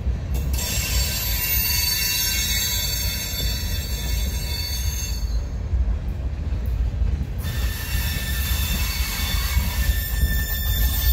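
Freight cars rolling past with a steady low rumble, their wheels giving off a high-pitched metallic squeal in two long spells: the first breaks off about five seconds in and the second starts about two seconds later.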